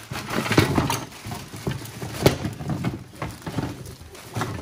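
Irregular light knocks and clatter of foam taxidermy manikin legs being pulled out of a box and set down, with handling noise between. The loudest knocks come about half a second and just over two seconds in.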